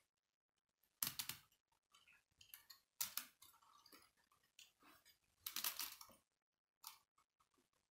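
Plastic K'nex gears and rods of a toy cement mixer clicking and rattling in short bursts as the model is rolled back and forth by hand, the loudest about a second in, around three seconds, and around five and a half to six seconds.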